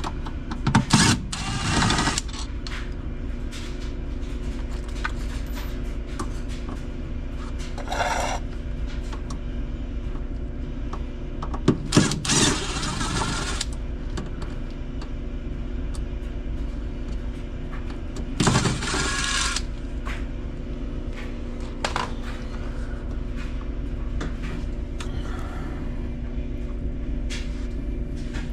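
Parts being worked loose from a Whirlpool top-load washer's drive during disassembly: four short scraping, clattering bursts over a steady background machine hum.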